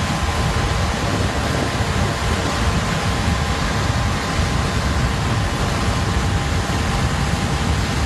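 Flash-flood torrent of muddy water surging down a gully: a loud, steady rushing noise with a deep rumble underneath.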